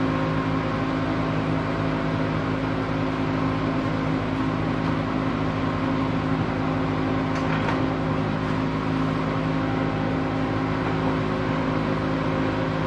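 Steady electrical machinery hum with a low buzz, the sound of a motor or fan running in the shop, with a couple of faint clicks.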